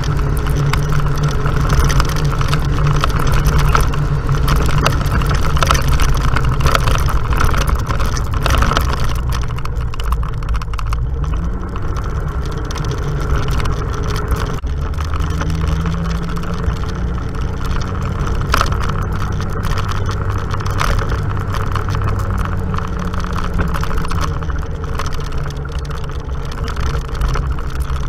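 Off-road vehicle engine running steadily under way, with bumps and rattles from riding over a dirt track. The engine note rises about a third of the way in, changes near the middle and then holds steady.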